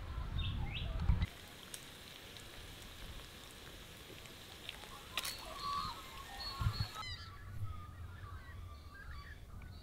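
Wind rumbling on the microphone with a couple of bird chirps. Then, about a second in, bacon and eggs sizzling in a frying pan on a camp stove, a steady hiss with a click partway through. About seven seconds in the sizzling stops and birds are heard calling.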